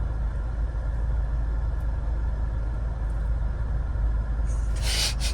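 Steady low rumble of a car heard from inside the cabin while driving, with a brief hiss near the end.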